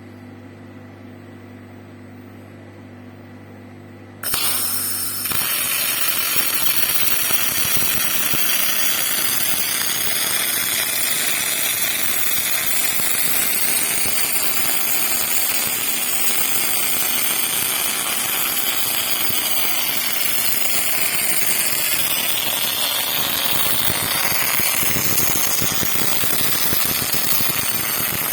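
A steady electrical hum, then about four seconds in the arc of a robotic welder with an OTC500 power source strikes suddenly. A loud, continuous crackle and sizzle of arc welding follows.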